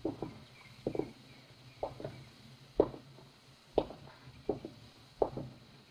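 Footsteps of two people walking slowly on a wooden floor, a knock about once a second with some steps falling close together in pairs.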